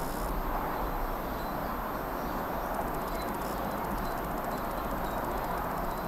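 Steady outdoor background noise with a faint high bird chirp now and then.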